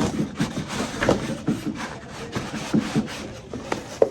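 Packaging being handled as an airbrush is taken out of its box: irregular rubbing and rustling with scattered clicks and knocks, and a sharp knock near the end.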